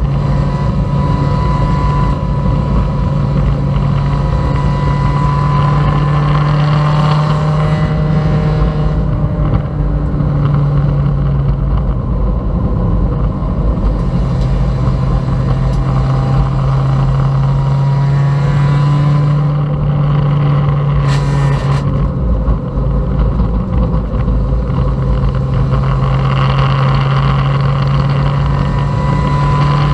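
Honda Civic race car's four-cylinder engine running hard, heard from inside the stripped cabin over steady road and wind noise. The engine note holds level, breaks off briefly about halfway through as the driver lifts or shifts, then comes back and climbs again near the end.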